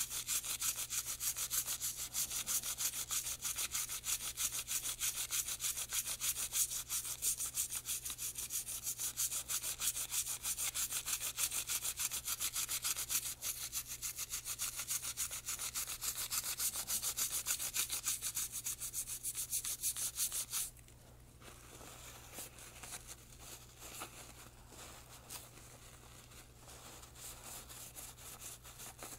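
A toothbrush scrubbing carbon and lead fouling off a small metal suppressor part in quick, even back-and-forth strokes. The scrubbing stops about 20 seconds in, and softer, irregular rubbing follows as a paper towel wipes the part.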